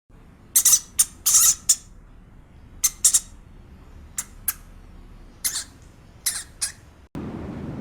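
A farm bird squawking: about a dozen short, harsh calls in irregular groups. Near the end they give way to a steady rush of wind noise.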